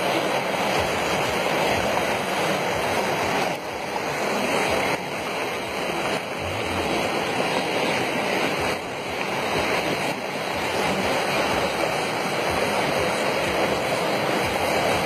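Heavy rain and floodwater rushing down a rocky hillside and across a road in a steady, unbroken rush of water.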